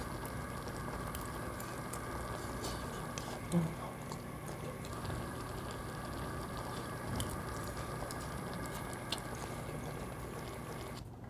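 Red spicy seafood stew simmering on a large iron griddle plate: a steady bubbling hiss with a few faint clicks, and one short louder sound about three and a half seconds in.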